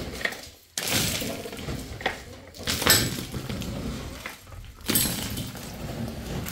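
Earth and broken roof debris falling through the timber roof poles and landing on the floor below. It comes in three sudden rushes about two seconds apart.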